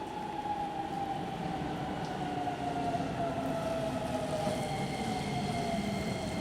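Electric commuter train slowing, its motor whine falling steadily in pitch while the running rumble grows louder: the train braking as it pulls into a station.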